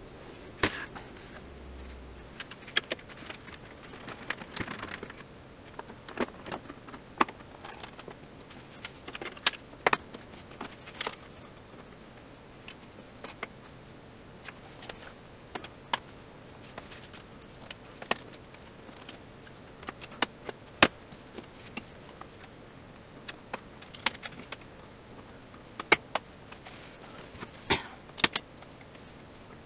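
Irregular sharp clicks and knocks of a flat-screen TV's metal back chassis and plastic frame parts being handled and fitted together by hand, some in quick pairs, others several seconds apart.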